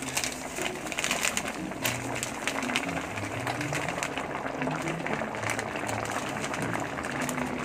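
Pork ribs in broth simmering in a pan, a steady bubbling crackle.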